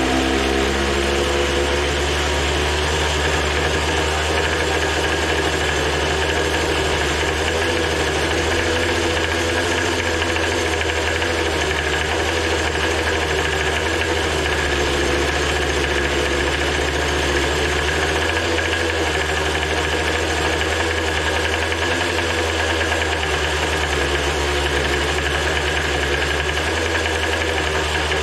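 Small two-stroke Poulan Pro leaf-blower engine running on nitromethane RC car fuel, holding a steady speed.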